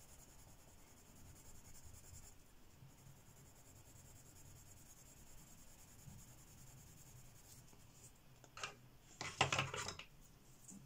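A wooden-cased Derwent Lightfast coloured pencil faintly scratching on paper as a swatch is shaded in. Near the end comes a short knock, then a brief clatter as the pencil is set down.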